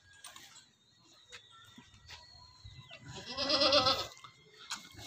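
A goat bleats once, about three seconds in: a single wavering call lasting about a second.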